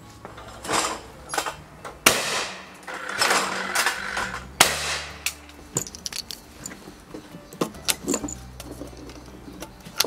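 Metallic clicks and clatter of a Felix Sarasqueta over-and-under shotgun being handled and loaded: the action is broken open and cartridges are slid into the chambers. There are a few sharp clicks, the loudest about two seconds in and about four and a half seconds in.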